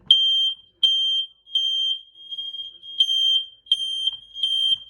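Smoke alarm's piezo horn sounding a fast temporal-3 (code 3) pattern on test: two groups of three loud, shrill, high-pitched beeps, with a fainter tone between the groups. It stops just before the end.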